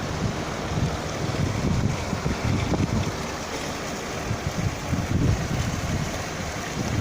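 Wind buffeting the microphone: a rumbling, gusty noise that rises and falls over a steady background hiss.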